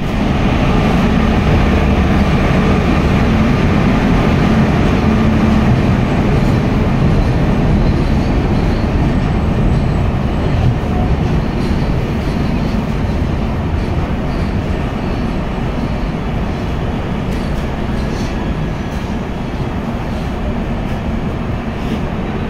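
Jan Shatabdi Express train running on the rails: a steady, loud rumble of wheels and carriages that eases slightly over the second half.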